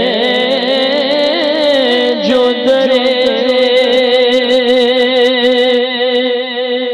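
A man singing a naat, drawing out a long melismatic phrase whose pitch wavers and bends, then settling about two and a half seconds in on one long held note.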